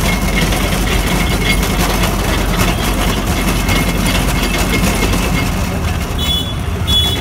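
Steady engine noise with a low hum, running without a break. A couple of short high tones sound near the end.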